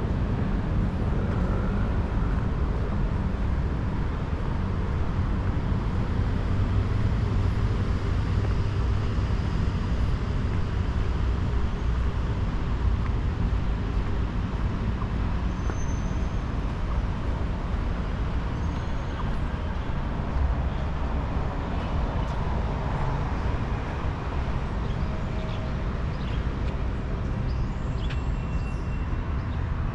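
Steady low rumble of road traffic, continuous throughout, with a few faint short high chirps.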